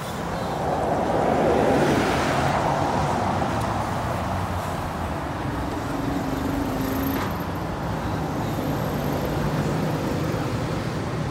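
Road traffic on a busy road: a vehicle passes close about two seconds in, then a lorry and a double-decker bus approach with their diesel engines running over a steady traffic drone.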